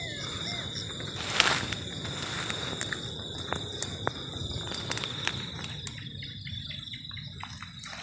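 Footsteps rustling and crunching through thick dry brush, with scattered snaps of twigs toward the end. Behind them an insect chorus keeps up a steady high drone.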